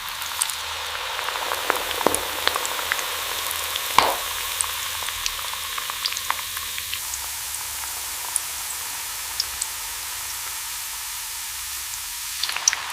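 Jalebi batter spirals deep-frying in hot oil: a steady sizzle with scattered pops and crackles, a few louder ones about two and four seconds in.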